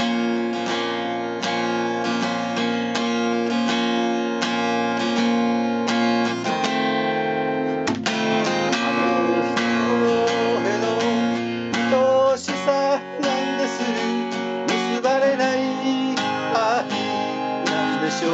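Steel-string acoustic guitar strummed in a steady rhythm, with melody notes picked over it: an instrumental interlude between sung verses.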